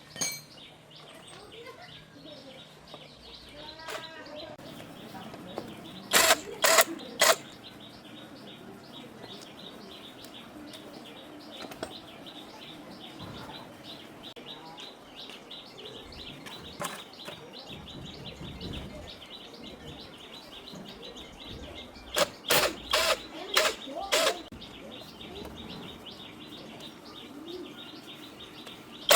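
Sharp metallic knocks of metal striking metal, in two bursts: three about six seconds in and about five more around twenty-two seconds, over birds chirping.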